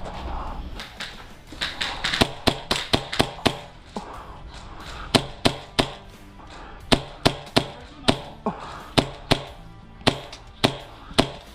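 Hi-Capa gas blowback airsoft pistol firing. Sharp cracks come in quick strings of several shots a second, with short pauses between the strings.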